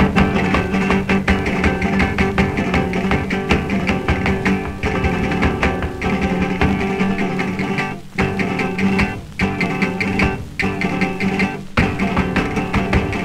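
Background music led by a quickly plucked guitar, with a steady busy rhythm.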